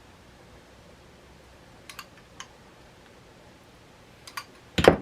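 Light clicks and taps of kitchen items being handled while nachos are topped: a few soft clicks about two seconds in, two more around four seconds, then a louder knock near the end.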